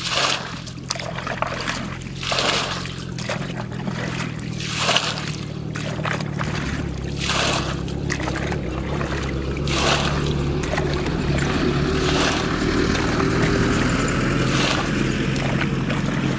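Repeated splashing and sloshing of shallow muddy water as someone wades and gropes for fish by hand. Under it a steady engine hum runs, growing louder about six seconds in.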